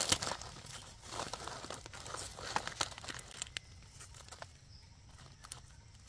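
Dry leaf litter rustling and crackling as a wild mushroom is pulled up by hand, then a knife scraping soil from the base of its stem. The crackles and clicks come on and off.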